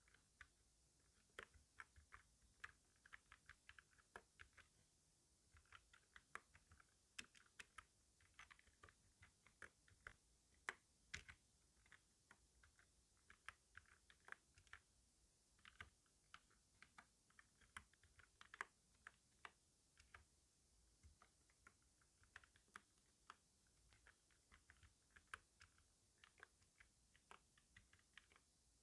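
Typing on a computer keyboard: quiet, quick key clicks in irregular runs, broken by brief pauses.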